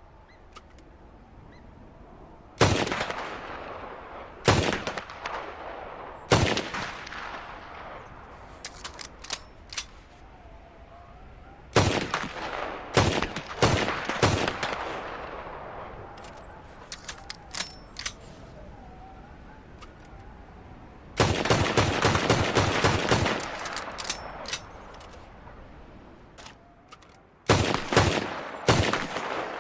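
Automatic pistol firing, each shot with a long echoing tail: three single shots about two seconds apart, then a quick group of four, then a sustained rapid burst of about two seconds, and another short burst near the end. Light clicks sound in the gaps between shots.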